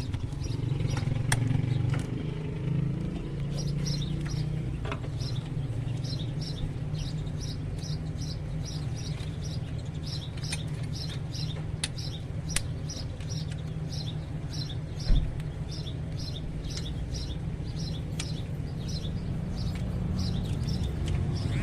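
A small bird chirping over and over, about three to four short high chirps a second, over a steady low hum. A few sharp clicks and one knock about fifteen seconds in come from tools on metal.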